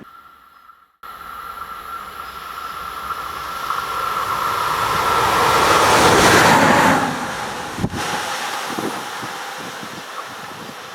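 A train passing at speed: the rush of wheels on rail builds to a peak about six seconds in, then fades. A steady high whine runs with it and drops in pitch as the train goes by. A single sharp click comes just after the peak.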